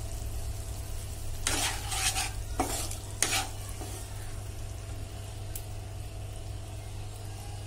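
Slotted wooden spatula stirring cauliflower and potato pieces through watery spice masala in a non-stick wok, over a faint sizzle. There are four scraping strokes in the first half, with a steady low hum underneath.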